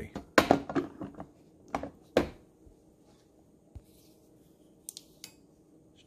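Glass coffee carafe knocking and clinking as it is set back onto the coffee maker's warming plate: several sharp knocks in the first two seconds or so, then a few light clicks near the end.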